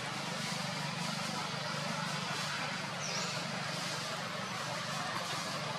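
Steady outdoor background noise, an even hiss over a low hum, with one short high chirp about three seconds in.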